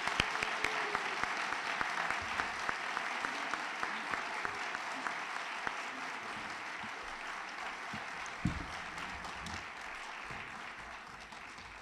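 Audience applauding, the clapping slowly thinning out toward the end. A single dull thump sounds about eight and a half seconds in.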